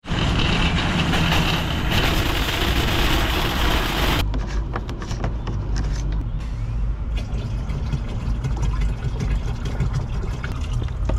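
Metal shopping cart rolling and rattling over concrete pavement for about four seconds, stopping suddenly. Then scattered clicks and knocks of plastic water bottles being handled while a plastic water tank is refilled, over a steady low rumble.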